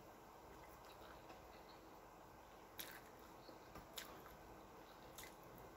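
Near silence with faint eating sounds: three light clicks about a second apart as someone chews fried fish and rice eaten by hand.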